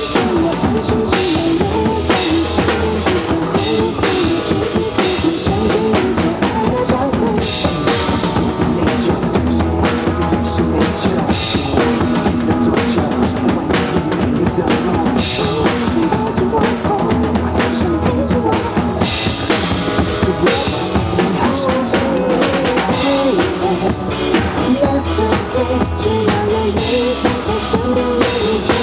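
Drum kit played along to a recorded song: kick drum, snare and cymbal strikes in a steady beat over the song's melody and bass line.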